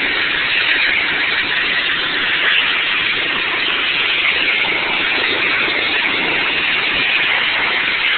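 High-pressure water jet from a pressure washer wand blasting across clay barrel roof tiles: a steady, unbroken hiss of spray.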